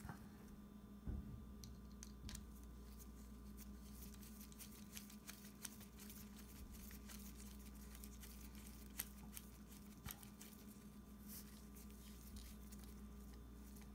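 Faint, scattered clicks and ticks of a suppressor and its baffle pusher tool being handled as the tool is threaded into the suppressor by hand, over a low steady room hum.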